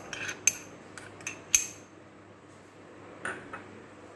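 Metal spoon clinking against a small ceramic cup and a glass mixing bowl as paste is scooped and tipped in. A handful of sharp clinks, the loudest about a second and a half in.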